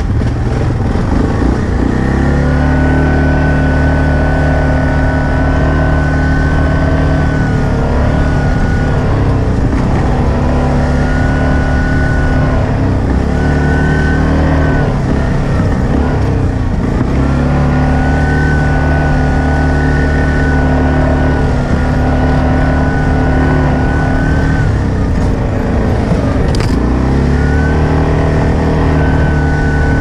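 ATV engine running under throttle at a steady pitch, with a thin high whine on top. The throttle is eased off and reopened several times, the engine note dipping and coming back each time.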